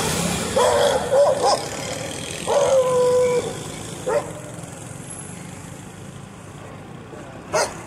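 Stray dogs barking at a passing motorcycle: a quick run of barks about half a second in, and another bark near three seconds that draws out into a longer held note. Under them runs the motorcycle and road traffic, fading as the bike pulls away.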